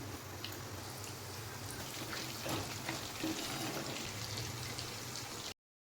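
Marinated chicken pieces deep-frying in hot oil: a steady sizzle with many small crackles and pops. The sound cuts off abruptly near the end.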